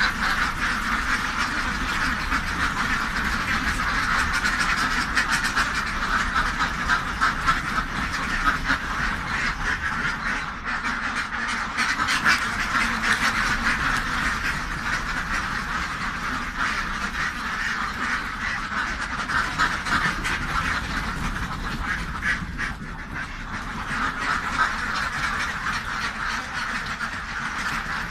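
A large flock of housed ducks quacking, many calls overlapping into a continuous din.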